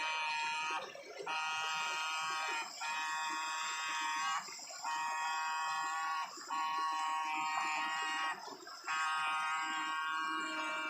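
Electrofishing stunner buzzing with a steady high-pitched electric whine. It is switched on and off in six stretches of about one and a half to two seconds, with short breaks between them.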